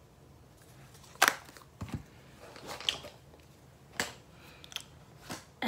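Makeup compacts and brushes being handled: several sharp clicks and light knocks as cases are picked up, opened and set down. The loudest click comes about a second in.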